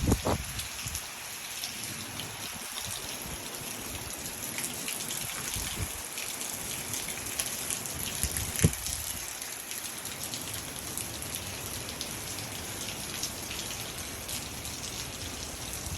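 Steady hurricane rain falling and spattering, with wind gusts rumbling on the microphone now and then. A sharp knock stands out about nine seconds in.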